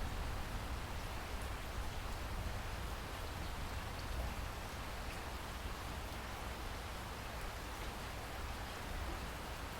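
Steady rain falling, an even hiss of rain with a low rumble underneath and faint scattered drop ticks.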